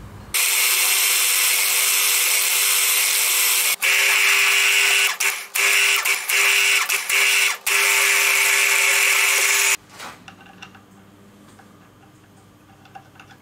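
Benchtop milling machine running, its cutter machining an aluminium plate: a steady high hiss with a held tone, broken by a few short gaps. About ten seconds in the machine stops, leaving a faint hum and a few light clicks.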